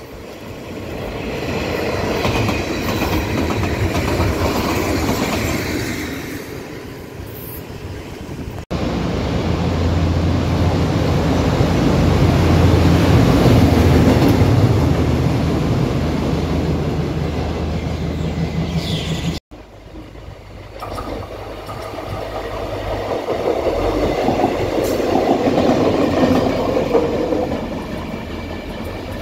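Three separate trackside recordings of rail vehicles passing, joined by abrupt cuts: first a locomotive-hauled special train, then a self-propelled track work vehicle with a steady engine hum, then a catenary maintenance car passing.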